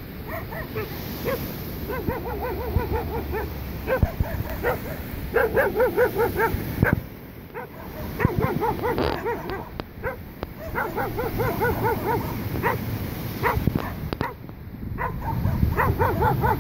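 A dog yapping in fast runs of short, high-pitched barks, about five a second, with brief pauses between the runs.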